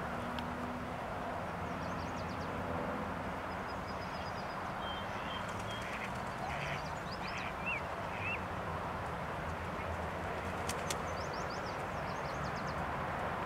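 Faint, short high-pitched calls from waterfowl, a handful in the middle with small rising hooks, over a steady outdoor rumble, with thin high chirps of small birds now and then.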